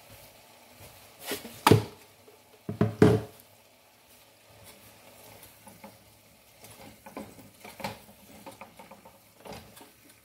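Two loud knocks about two and three seconds in, then a spatula stirring and scraping pieces of bread in a frying pan, with light clicks against the pan.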